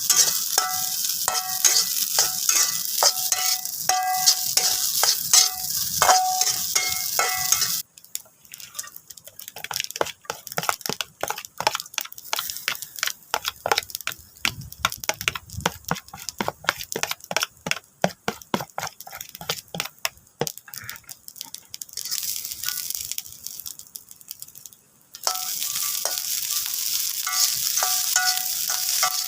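Nasi goreng with grasshoppers frying in a pan, sizzling while a spatula stirs it and clinks against the pan. For a long stretch in the middle the sizzle drops away, leaving a quick run of stirring and scraping clicks. The sizzle comes back near the end.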